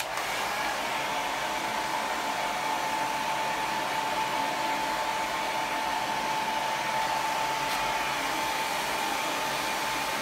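Handheld hairdryer running steadily: an even rush of blown air with a steady whine.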